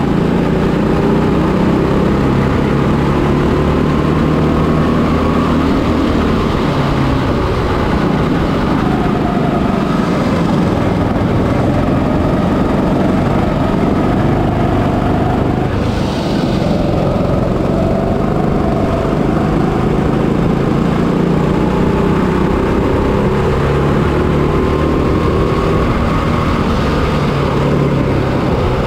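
Onboard sound of a kart's 200cc single-cylinder four-stroke engine (GX200-type, 6.5 hp) running under racing load. Its pitch rises and falls over and over as the kart accelerates out of corners and slows into them.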